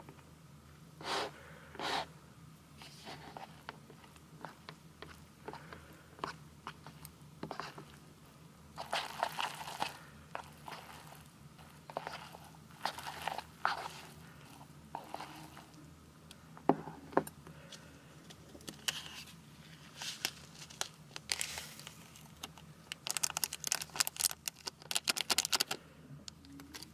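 Eating sounds from a bowl of spicy fried instant noodles: irregular short rustles and chewing, with clicks and scrapes of utensils against the dish, and a quick run of clicks near the end.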